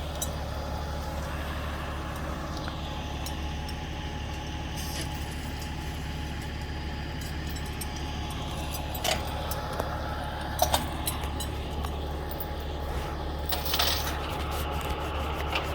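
A heavy vehicle's engine idling steadily, with a few sharp clicks and knocks over it in the second half.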